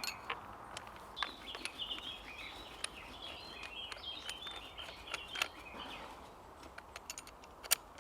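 Small birds singing and chirping, with scattered sharp clicks and knocks, the loudest one near the end.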